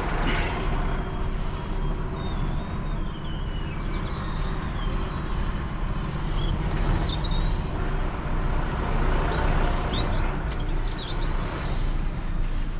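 Heavy recovery truck's diesel engine running steadily as it moves off towing a car transporter, with faint high squeaks here and there.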